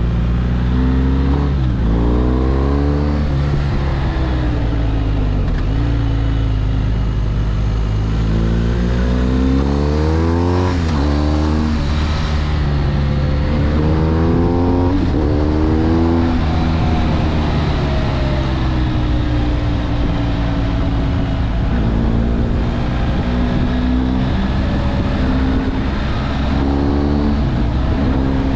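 BMW R 1250 GS's boxer-twin engine under way, accelerating and shifting up through the gears: its pitch climbs and drops back at each shift several times, then runs steadier in the second half.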